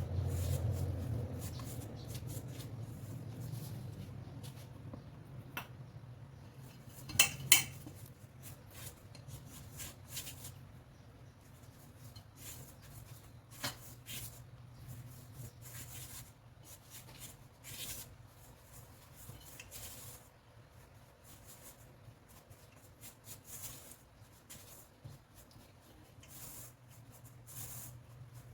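Utensils clinking and scraping against dishes, with two sharper clinks about seven seconds in, over a low hum that fades out in the first few seconds.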